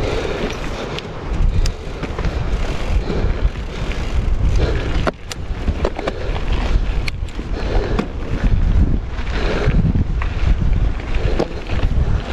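Mountain bike rolling over a dry dirt-and-stone singletrack: steady tyre rumble and wind buffeting the microphone, with scattered sharp clicks and knocks as the wheels strike stones and the bike rattles.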